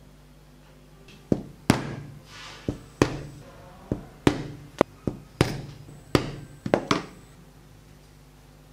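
Mallet blows in leatherwork: about a dozen sharp knocks at an uneven pace, each with a short ring, starting about a second in and stopping near seven seconds.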